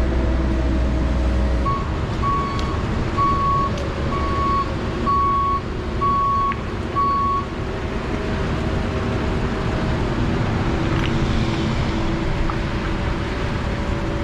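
Heavy-equipment diesel engine running steadily, with a backup alarm sounding about seven even beeps from about two seconds in to halfway, as the machine travels or reverses.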